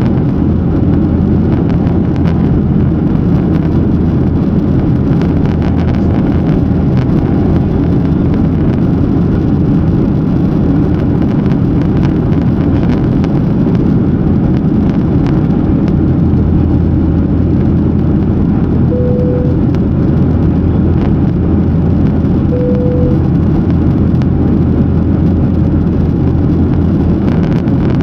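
Boeing 737-900ER's CFM56 jet engines and rushing air, a loud, steady low rumble. Two short single-pitch tones sound about four seconds apart in the later part.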